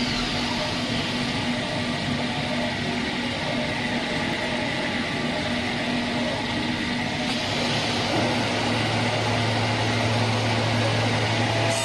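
CNC wood lathe running: a steady machine hum with a noisy cutting hiss. About seven seconds in the sound changes, the hiss brightening and a lower hum coming in.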